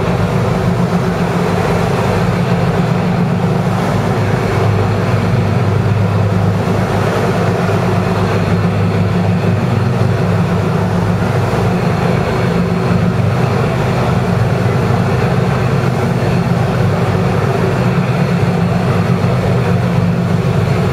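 A navy boat's engine running steadily at constant speed, a low even hum, with water washing along the hull.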